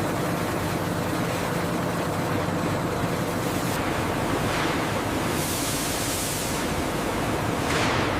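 Steady, even noise with a faint low hum under it, and two brief hisses in the second half.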